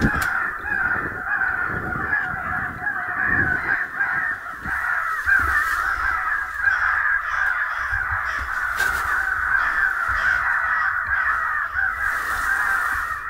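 Electronic crow caller playing a recording of many crows cawing over one another, a dense unbroken chorus of caws used to draw crows in.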